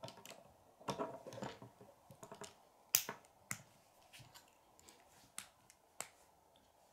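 K'nex plastic rods and connectors clicking as they are snapped together and handled: scattered sharp clicks, the loudest about three seconds in.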